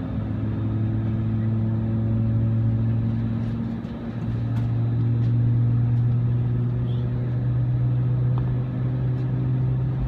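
Airbus A320 jet engines running, heard from inside the cabin as a steady low drone with a deep hum. The hum dips briefly about four seconds in, then returns slightly higher and louder.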